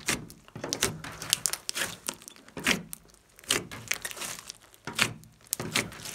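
Hands kneading and folding a large mass of soft slime mixed with clay, giving off crackling, popping clicks in irregular clusters, a few every second.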